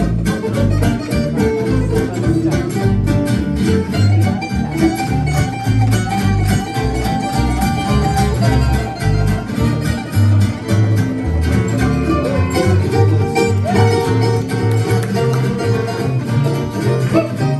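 Instrumental acoustic swing played live: a fiddle carrying the melody with held notes over two acoustic guitars keeping a steady strummed rhythm.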